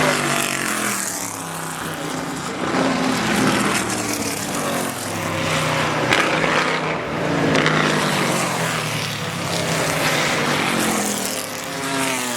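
Historic GT racing cars' engines going past one after another at speed, each rising and then falling in pitch as it passes.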